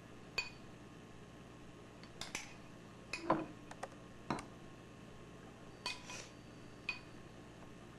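A spoon clinking and tapping against drinking glasses while topping is spooned on: about eight scattered light clinks, several with a short glassy ring.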